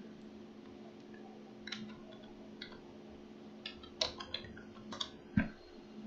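Faint, scattered keystrokes on a computer keyboard, with a heavier knock about five and a half seconds in, over a low steady hum.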